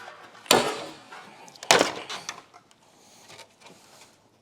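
Hard plastic car parts knocking and clattering as they are handled: two loud clacks about a second apart, then lighter rattles.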